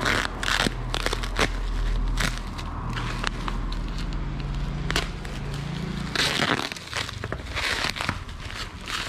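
Bubble wrap crinkling and crackling in irregular bursts as hands handle it and peel packing tape off, with a louder rustle about six seconds in, over a low steady hum.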